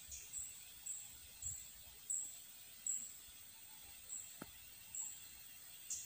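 Outdoor insect ambience: a steady high-pitched drone with short high chirps repeating about every half second to second. There is a single faint click about four seconds in.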